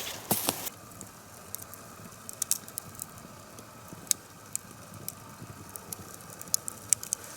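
Wood campfire crackling: irregular sharp pops and snaps over a steady low hiss, with a few louder knocks in the first second.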